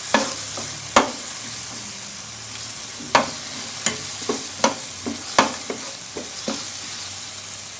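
Petai beans and spice paste sizzling in hot oil as they are stir-fried, with a utensil knocking and scraping against the pan about nine times at irregular intervals.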